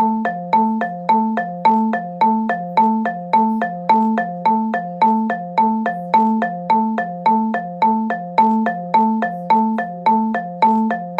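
Electronic emergency alert alarm tone: a looping chime of struck, mallet-like notes, about two a second, alternating between two pitches and repeating steadily without change.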